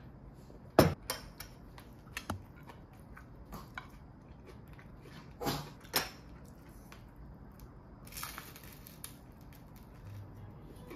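Tableware clinking and knocking at a meal: a few sharp clinks, the loudest just under a second in and two more close together around five and a half to six seconds, then a brief rustle a little past eight seconds.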